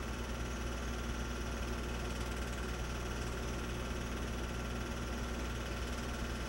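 Steady hum and whir of a home-movie film projector running, with an even hiss and no other sound.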